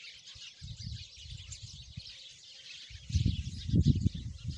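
Outdoor ambience of small birds chirping continuously, under a low, uneven rumbling that grows much louder about three seconds in.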